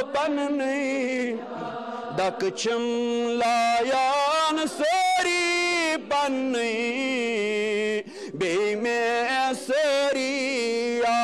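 Sufi devotees chanting a manqabat, verses in praise of a saint, sung in long held notes that waver and slide between pitches over a steady low drone of voices.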